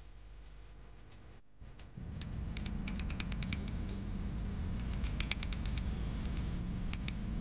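A wire whisk beating an egg and cream custard mix in a glass bowl, starting about two seconds in: quick runs of clicks as the wires tap the glass, over a low rumble.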